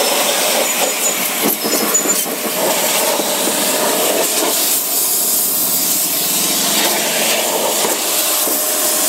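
A 190-bar electric pressure washer's jet spraying into a car's wheel arch and tyre, a steady hiss with water splashing off, blasting mud and dirt out of the wheel well.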